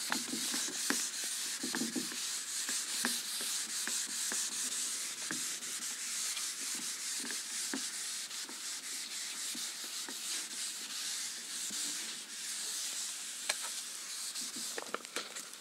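Hand-held eraser rubbing back and forth across a whiteboard: a steady scrubbing hiss with small taps here and there.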